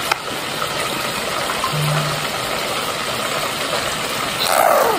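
Steady rushing noise, with a brief low hum about two seconds in and a short falling squeak near the end.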